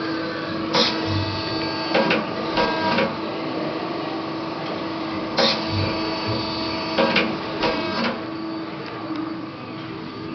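LVD PPEB CNC press brake running, its backgauge driving through a repeating positioning cycle: short whirrs and clatters about every four and a half seconds over a steady machine hum.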